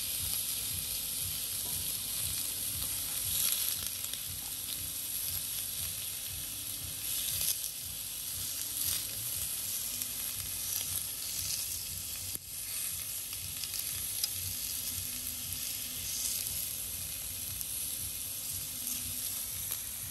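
Slices of seasoned beef sizzling on a hot griddle pan: a steady frying hiss with scattered sharp crackles.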